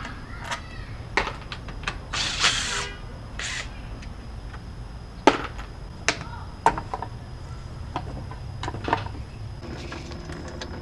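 Hand tools and metal parts clicking and knocking as an engine bay is taken apart, with a couple of short rasping sounds early on.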